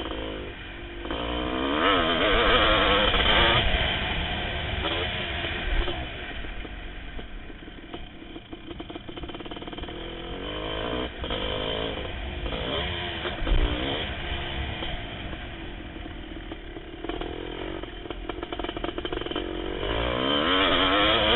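1988 Kawasaki KX500's 500cc two-stroke single-cylinder engine under racing throttle. It revs up hard about a second in and again near the end, and runs lower in between. A couple of sharp knocks come through the bike over the bumps.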